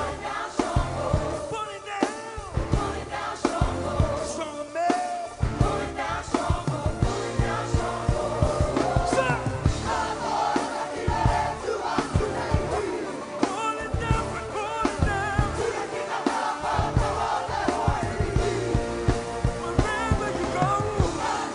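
Live music with frequent drum hits and a group of voices singing and shouting together.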